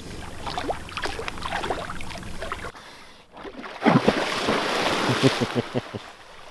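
Sea lions barking: scattered short calls at first, then a louder run of barks from about four seconds in, over wind and water noise.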